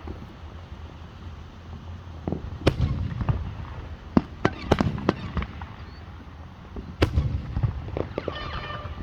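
Fireworks going off: a string of sharp bangs starting about three seconds in, several in quick succession around the middle, and a crackling burst near the end, over a steady low rumble.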